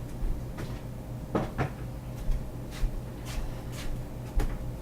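A series of sharp knocks and clunks of kitchen cupboard doors and items being handled, with a louder double knock about a second and a half in and another near the end, over a steady low hum.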